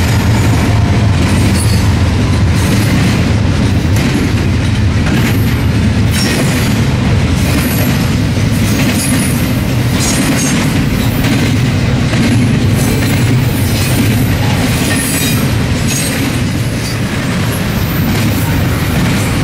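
Double-stack intermodal freight train's container well cars rolling past close by: a steady, loud rumble of steel wheels on rail, with irregular clicking as the wheels pass over rail joints.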